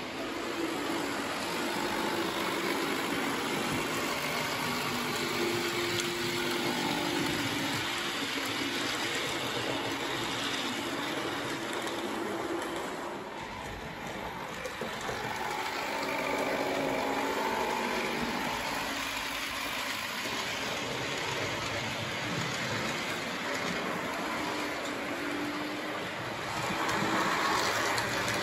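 Model Re 4/4 IV electric locomotive and its coaches running around a model railway layout: a steady whirring rumble of the small motor and wheels on the rails, growing louder near the end.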